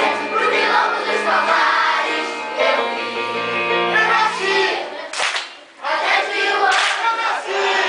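Children's choir singing in unison over steady low notes from an electronic keyboard. About five seconds in the accompaniment drops out and the singing turns into short loud accents with a brief lull between them.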